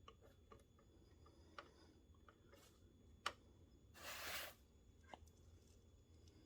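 Faint, scattered small clicks and taps of hand work with a small Phillips screwdriver on tiny screws, one sharper click a little after three seconds in, and a short hissing rustle about four seconds in.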